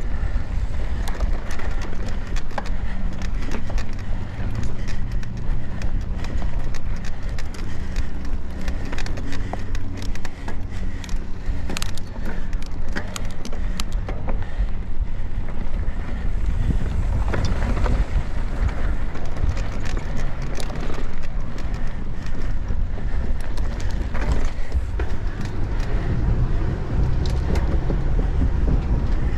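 Mountain bike ridden fast over a dusty, rough dirt trail, with steady wind rumble on the microphone, tyre noise and frequent sharp clicks and rattles from the bike over the bumps.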